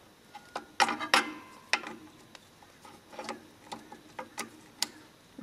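Pliers working a split pin out of a castellated nut on a John Deere two-cylinder tractor's clutch adjusting bolt: scattered sharp metallic clicks and scrapes, busiest about a second in, with single ticks after.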